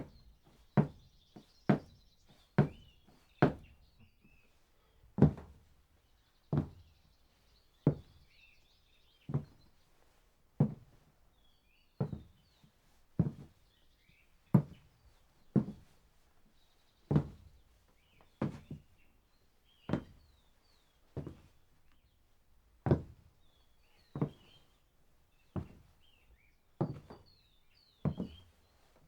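A man's footsteps: quick, even marching steps for the first few seconds, then slow walking, one firm step about every second and a half.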